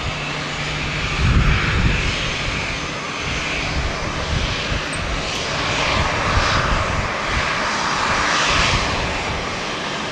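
Boeing 777-300ER's GE90 turbofan engines running at low taxi thrust with a steady jet whine and hiss as the airliner rolls and turns. Gusty wind rumbles on the microphone now and then, the strongest about a second in.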